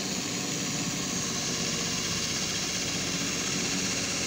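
Handheld electric drill running steadily at constant speed, driving a screw into the sheet-metal casing of an electric heater.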